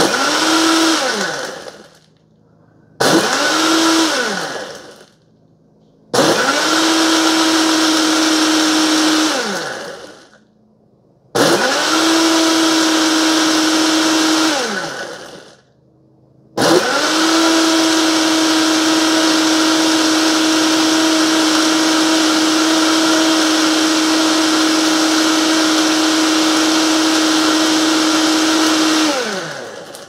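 Mr. Coffee frappe maker's built-in blender (model BVMC-FCM-2T) running its automatic blend cycle, crushing ice with coffee and milk. It gives four pulses, growing from about a second to about three seconds long, each spinning up to a steady hum and winding down. Then comes one long run of about twelve seconds that winds down near the end.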